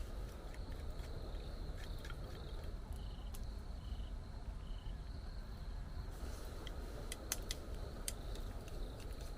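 Night jungle ambience in rain: a steady low rush of rain with a constant high insect buzz. Three short high chirps come about a second apart in the middle, and sharp drip-like ticks are scattered through, most of them near the end.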